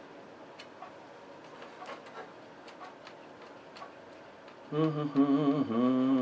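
Faint, scattered light clicks and ticks, then near the end a man starts humming a tune in held, wavering notes, much louder than the clicks.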